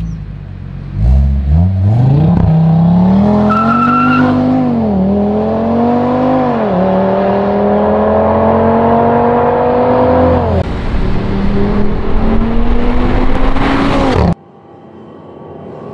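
Audi RS3's turbocharged five-cylinder engine through a Fi Exhaust valvetronic catback and catless downpipes, idling, then launching hard about a second in and pulling through the gears, its note climbing and dropping with four quick upshifts. The loud pull cuts off suddenly near the end, giving way to a quieter rising engine note.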